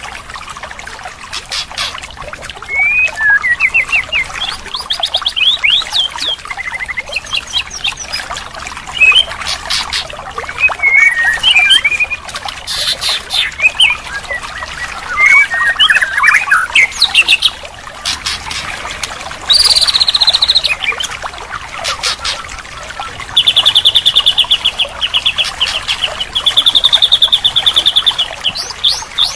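White-rumped shama (murai batu) song: a string of varied whistled phrases and chatters, then a fast, loud, evenly repeated trill from about two-thirds of the way in.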